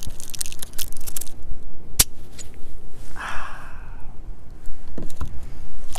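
Taps and clicks from hands working a small round metal tin, with one sharp crack about two seconds in.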